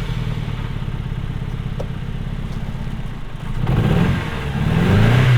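MG ZR engine just started, idling unevenly and then revved twice, each rev a rising note, the second the higher. The engine is still misfiring despite new ignition parts.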